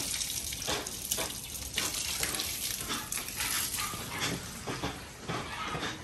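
Water from a garden hose spraying and splashing on a soaked dog and wet concrete: a steady hiss broken by irregular splashes.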